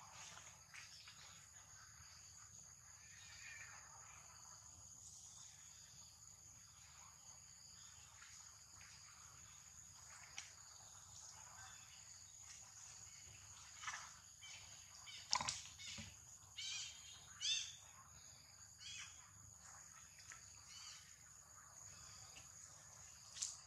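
Faint, steady high-pitched insect chorus, with a handful of short, sharp high animal calls bunched together a little past the middle.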